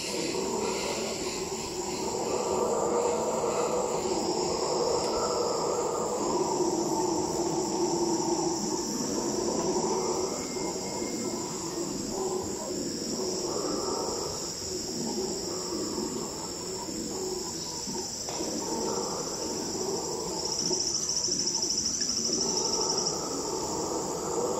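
Howler monkeys roaring in a low, rolling chorus that swells and fades over several seconds at a time, over a steady high drone of crickets and other rainforest insects.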